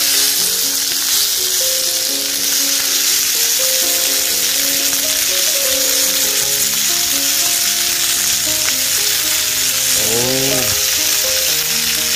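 Beef sirloin steaks searing in a thick cast-iron pan, with a loud, steady sizzle of hot fat and meat juices.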